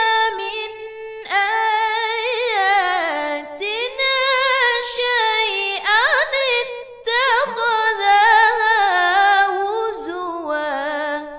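A woman's voice reciting the Quran in Arabic in melodic tajweed style, unaccompanied, drawing out long ornamented notes in several phrases with short breaths between.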